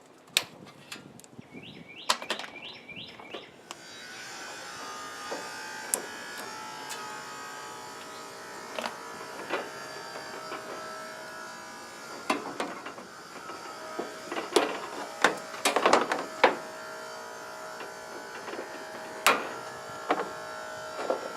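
Steady buzz of a small electric motor starting about four seconds in, with scattered clicks and metal clanks as the toaster oven's power cord is cut and pulled out of its steel casing.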